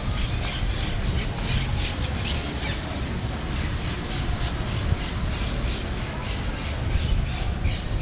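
Outdoor pedestrian-street ambience: a steady low rumble with short high squawks repeating irregularly, about every half second.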